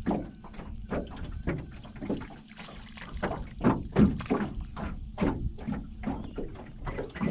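Irregular knocks and splashy clatter around a small fishing boat as a fish is reeled in, over a steady low rumble of wind on the microphone.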